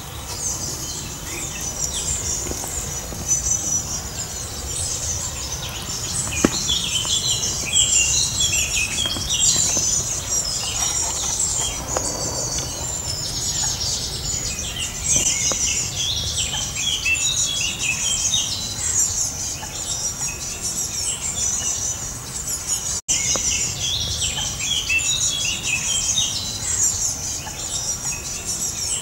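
Birds singing and chirping in woodland, many calls overlapping, over a steady high chirring. There is a brief dropout about three-quarters of the way through.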